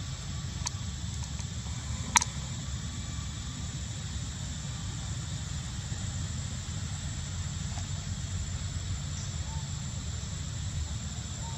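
Outdoor ambience: a steady low rumble with a steady high, thin insect drone over it. A single sharp click comes about two seconds in.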